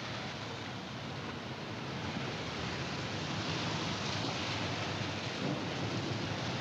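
Steady rushing noise with no distinct tones or strokes, slowly growing a little louder.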